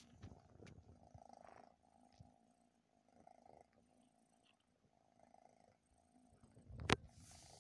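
A Scottish Fold cat purring softly, the purr swelling and fading with its breaths. A single sharp click near the end is the loudest sound.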